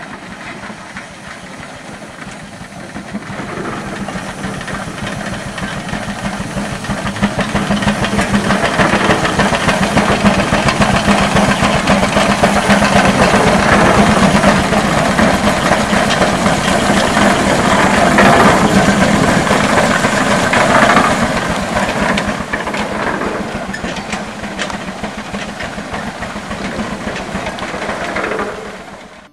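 1909 Robert Bell steam traction engine under way, its exhaust chuffing rapidly from the stack with a steady steam hiss. It grows louder over the first several seconds, is loudest through the middle, then fades.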